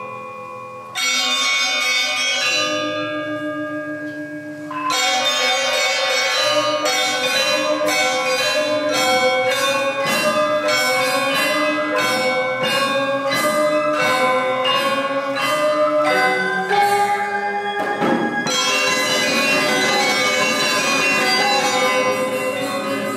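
Instrumental music of struck, ringing bell-like notes. A few slow, long-ringing tones come first, then from about five seconds in a steady run of notes at roughly two a second.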